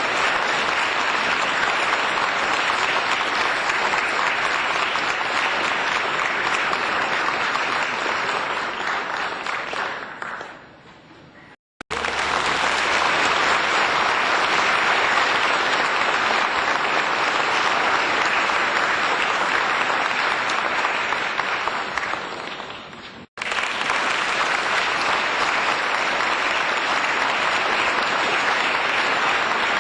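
Applause: many hands clapping in a dense, even patter, in three separate takes. The first fades away about ten seconds in and the second starts abruptly just before twelve seconds. The second fades out around twenty-two seconds, and a third starts abruptly about a second later.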